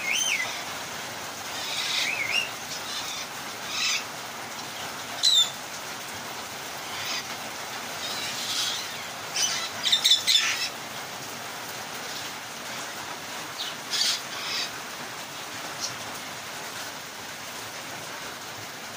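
Parrots giving short, gliding squawks and chirps every few seconds, with a cluster of calls about ten seconds in, over a steady hiss of falling rain.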